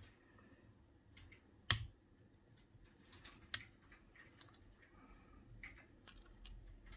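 Faint clicks and taps of small electronic parts and tools being handled, with one sharp click nearly two seconds in and a lighter one about halfway through.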